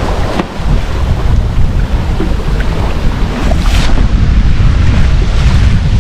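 Wind buffeting the microphone with a heavy low rumble, over the rush of sea water along the hull of a sailing yacht moving fast under sail.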